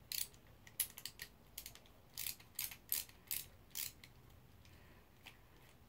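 Long combination screwdriver turning out T25 Torx screws from a small geared motor's cover: a series of short, sharp clicks, about a dozen, stopping about four seconds in.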